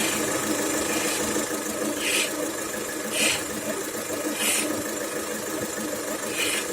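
Opel Astra H Z18XER 1.8-litre four-cylinder petrol engine idling, with a knocking, crackling rattle from the accessory drive belt tensioner, the sign of a worn tensioner. Short hissing bursts come several times, about a second apart.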